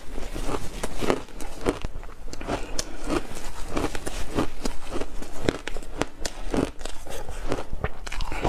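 Ice being crunched and chewed close to the microphone: frozen block ice coated in milk powder, bitten into and ground between the teeth in a run of sharp, irregular crunches, about two a second.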